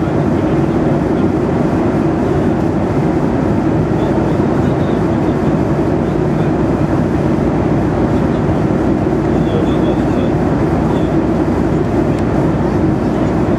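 Steady airliner cabin noise at cruising altitude: the engines and rushing air make an even, deep drone that does not change.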